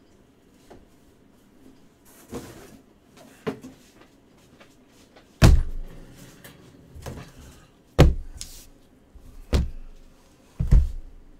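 Sealed boxes of trading cards being set down on a table: a couple of light knocks and rustles, then four heavy thumps in the second half.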